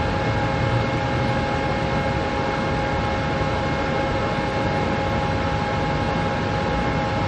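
Steady mechanical rumble with several constant humming tones held at one pitch, from a running engine or machine such as a passing train or nearby vehicle.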